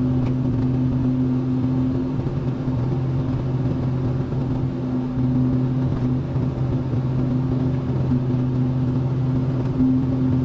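Excavator's diesel engine running at a steady speed, a constant drone with small dips in level, while the machine works mud.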